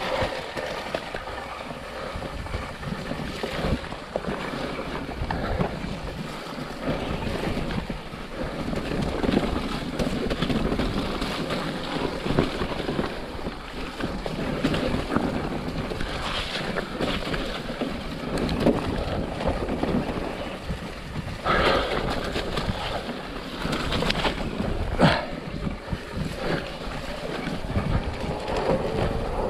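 Electric mountain bike rolling fast down a muddy trail: tyres running through wet mud and puddles, the bike rattling over the rough ground, and wind on the microphone. There are two sharp knocks from hard hits in the last third.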